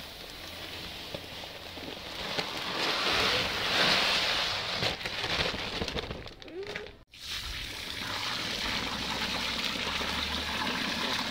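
Dry ponni rice pouring from a bag into a steel bowl, a steady grainy hiss, which breaks off about seven seconds in. Then water pouring from a jug onto the rice in the bowl to soak it.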